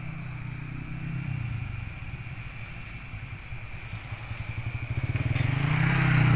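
A vehicle engine running with a fast, even pulse, growing louder over the last two seconds.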